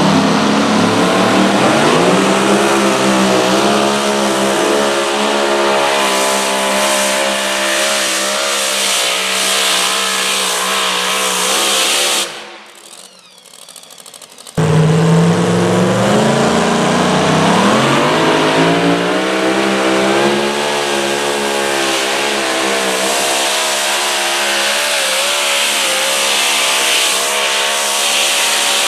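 Two pulling-vehicle engines at full throttle in turn. A modified pulling tractor runs hard for about twelve seconds, its pitch climbing at first and then holding at high revs, and stops abruptly. After a short lull a supercharged modified two-wheel-drive pickup pulls, its engine likewise climbing to steady high revs.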